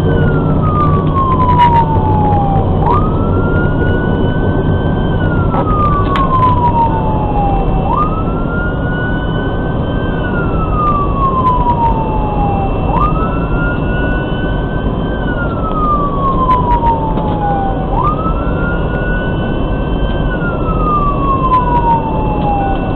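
Fire engine's siren sounding a wail, each cycle about five seconds long: a quick rise, then a slow fall, heard from inside the responding engine. Steady engine and road noise runs underneath.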